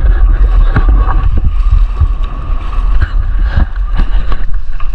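Wind buffeting the microphone aboard a small outrigger boat running over choppy water, with scattered knocks and splashes against the hull.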